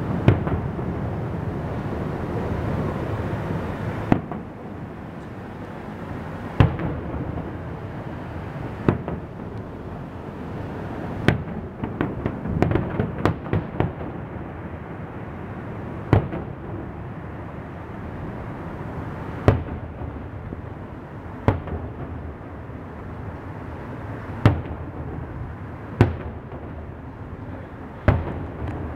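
Aerial fireworks shells bursting, single sharp bangs every two or three seconds with a quick run of crackling pops about halfway through, over a steady background hiss that is louder for the first four seconds.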